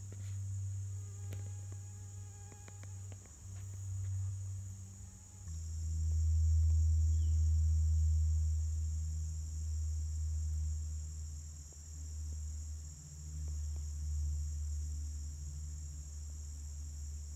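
Steady, high-pitched chorus of forest insects, over a low rumble that is the loudest part. The mix shifts about five seconds in.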